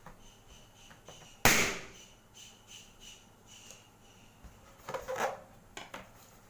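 A rubber balloon bursting with a single sharp pop about a second and a half in as a knife stabs it, followed by faint rubbery squeaks and rustling as the burst rubber is handled.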